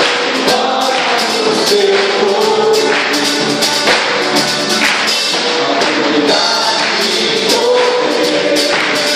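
Gospel worship song: singing over a band, with percussion keeping a steady beat.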